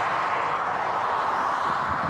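Steady rushing roar of motorway traffic going past close by.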